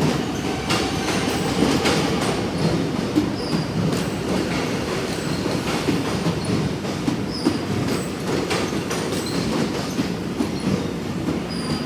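Suburban electric train rolling past at close range: a steady rumble with the wheels clicking irregularly over rail joints and points, and a few short high wheel squeals.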